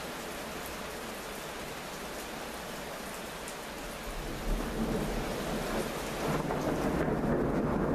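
Steady rain falling, then about halfway through a long roll of thunder rumbles in and grows louder, a deep rumble that keeps rolling over the rain.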